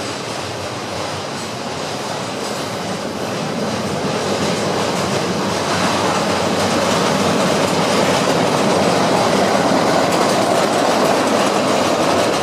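Narrow-gauge light railway train running along the line, growing steadily louder as it draws near.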